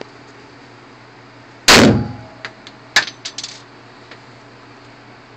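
A single semi-automatic pistol shot about two seconds in, with a short echo, followed about a second later by a quieter sharp knock and a few light clinks.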